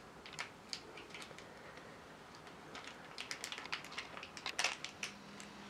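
Faint crinkling and small clicks of a small plastic powder sachet from a DIY candy kit, handled and worked at by fingers as it is torn open, with a denser patch of crackling about four and a half seconds in.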